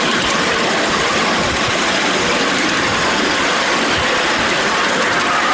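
Ride-on miniature railway train, a model of a BR class 37 locomotive, running along the track: a steady, loud rumble of wheels on rail and the locomotive, heard from aboard the train.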